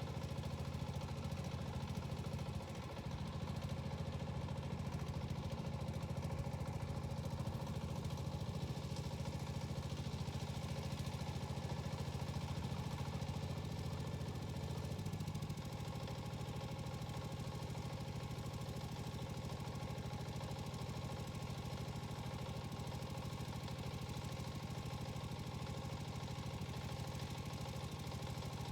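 Yanmar walk-behind tiller's small diesel engine running steadily at idle. Its note shifts and it turns slightly quieter about halfway through.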